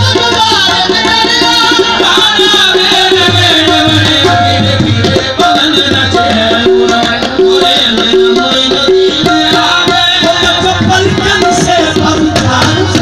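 Live qawwali music: tabla drumming under held and repeated harmonium notes, loud throughout.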